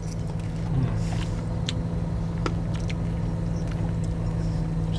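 Steady low hum of a car running, heard inside the cabin, with a few faint short clicks from a metal spoon.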